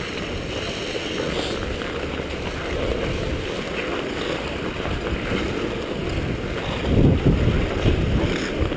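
Wind rushing and buffeting the microphone of a head-mounted GoPro as the wearer skates, mixed with ice skate blades gliding and scraping on the ice. The rushing swells louder about seven seconds in.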